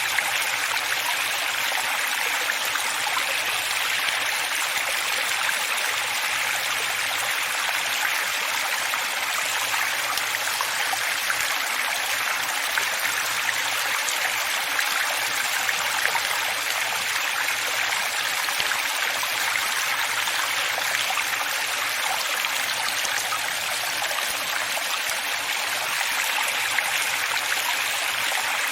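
Running water, a steady rushing splash with its sound mostly in the middle and upper range and hardly any deep rumble.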